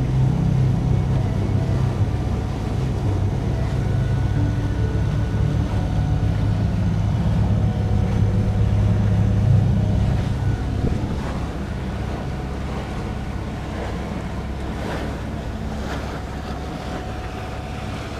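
Sailboat under way at sea: wind on the microphone and water noise, over a low steady hum that weakens about ten seconds in.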